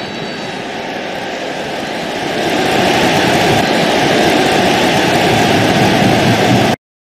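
Stadium crowd noise: a steady roar from a large football crowd that swells louder about two and a half seconds in, then cuts off abruptly for a moment near the end.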